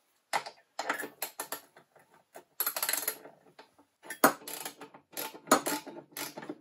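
Ratchet wrench clicking in short runs, with metal clinks, as nuts are tightened on a steel case-splitting plate to spread an aircraft engine's crankcase halves apart.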